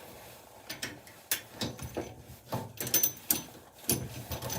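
Spanner working at a stubborn bolt on a washing machine: a string of irregular metal clicks and knocks, about two a second, as the bolt spins round without coming out.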